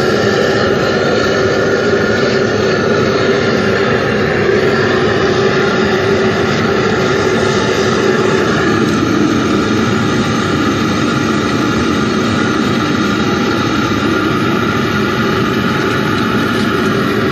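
Aluminium melting furnace's burner running with a steady, loud roar and a few held tones, unchanged throughout.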